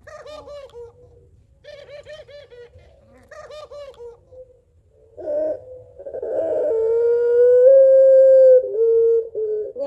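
A puter pelung, a caged ringneck dove of the long-cooing pelung type, calls. It gives three short runs of quick laughing notes and a brief coo, then one long drawn-out coo of about four seconds that rises slightly and is the loudest part.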